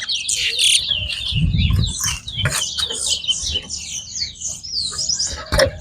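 Caged towa-towa seed finches singing a fast, twittering, warbling song, with phrase after phrase running on without a break. There is a dull low thump at about one and a half seconds and a sharp click near the end.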